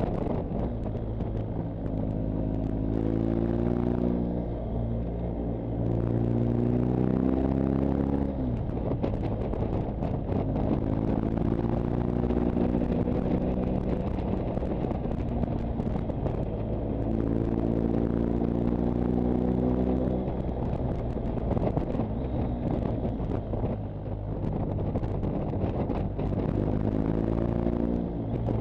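Motorcycle engine heard from the rider's own bike, running under load and rising in pitch several times as it accelerates, with wind rushing over the microphone.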